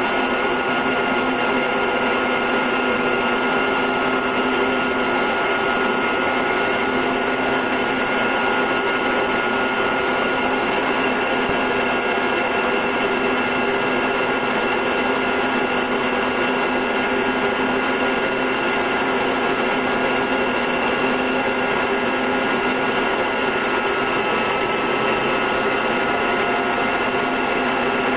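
Short Tucano's Garrett TPE331 turboprop engine and propeller droning steadily in cruise, heard on board: an even whine made of several held tones over a rushing noise, with no change in pitch or level.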